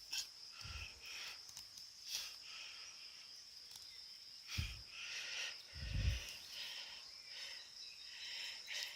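Main blade of a Victorinox Cadet Alox pocketknife shaving a small, hard stick into a feather stick, in repeated short scraping strokes about two a second, with three dull knocks from handling. A steady high insect trill runs underneath.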